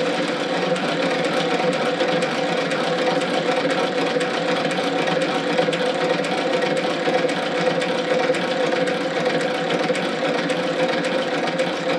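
Eight-cylinder Stirling engine running steadily: an even, rapid mechanical clatter from its moving parts over a steady hum.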